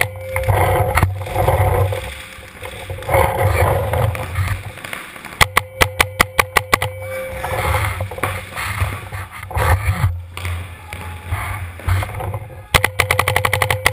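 Paintball marker firing rapid strings of shots: a burst of about a dozen shots lasting a second and a half about five seconds in, and another fast string starting near the end. In between there is rustling and handling noise of the gun and gear.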